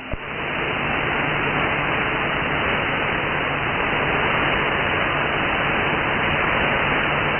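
Steady radio static from a shortwave receiver tuned to the CB band between transmissions, an even hiss with a faint low hum under it.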